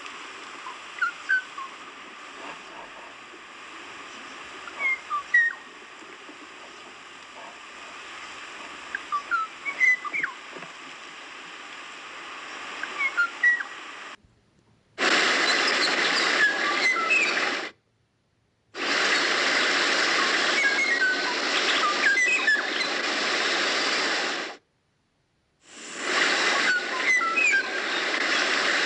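Kauaʻi ʻōʻō calling: short whistled notes, singly and in small groups every few seconds, over a steady hiss. About halfway the background jumps to a much louder rushing noise, cut by two brief gaps of silence, and the whistled notes carry on through it.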